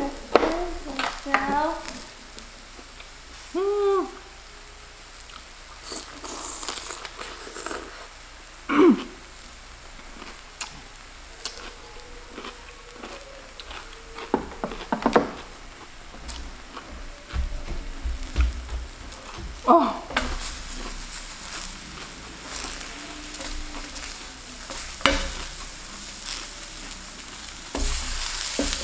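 Zucchini slices sizzling steadily on a hot tabletop griddle, with scattered sharp clicks and taps.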